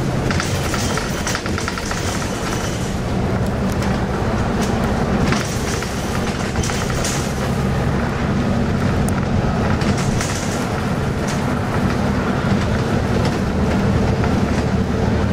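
Bus engine running steadily with road noise, heard from inside the moving bus, with scattered rattles and clicks from the bodywork and fittings.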